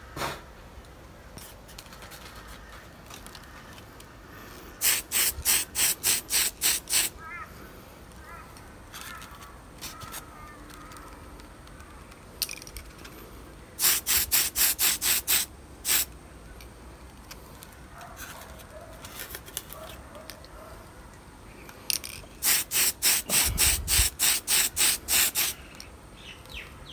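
Aerosol spray can of primer fired in quick short hisses, about four a second, in three runs of two to three seconds each, laying a light first coat on a plastic model truck cab. A low thump comes during the last run.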